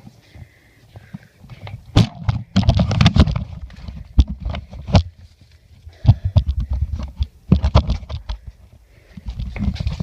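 Irregular knocks and thumps of footsteps and handling noise as a person moves about holding the camera, thickest in two flurries, a couple of seconds in and again after about six seconds.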